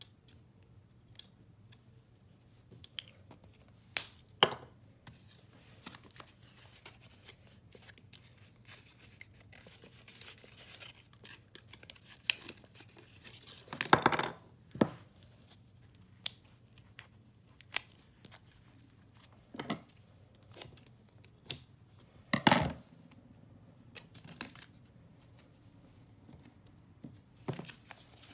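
Paper crafting at a table: scattered snips of scissors cutting paper and paper being folded and handled. A few louder, longer bursts of tearing come about a third of the way in and again near three-quarters of the way through.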